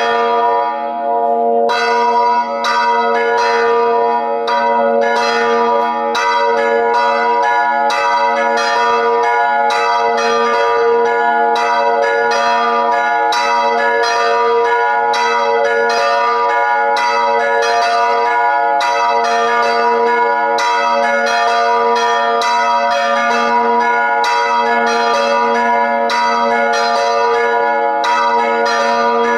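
Three hand-rung church bells pealing together in a festive bell concert, strikes coming several a second and overlapping so that their tones ring on continuously. The strikes thin out briefly about a second in, then carry on steadily.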